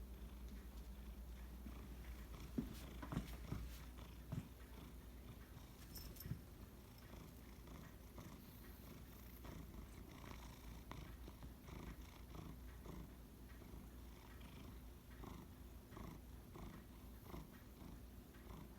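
Domestic cat purring faintly and steadily, with a few short knocks or taps in the first few seconds.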